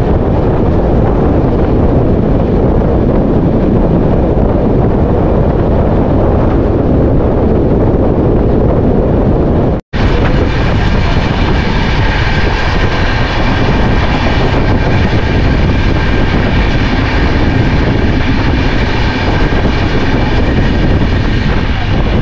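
Wind rushing over the microphone held outside a moving passenger train, over the steady rumble of the coach running on the track. About ten seconds in the sound cuts to a second stretch of the same rumble and rush, now with a steady high whine over it.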